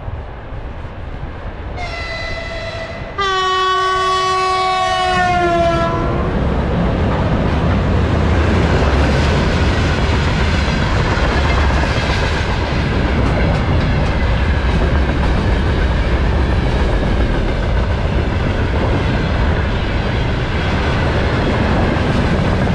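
2ES6 'Sinara' electric locomotive sounding a short high whistle blast, then a longer, louder, lower typhon horn blast whose pitch drops as it passes. A long freight train then runs through at speed with a steady loud rumble and clatter of wheels on the rails.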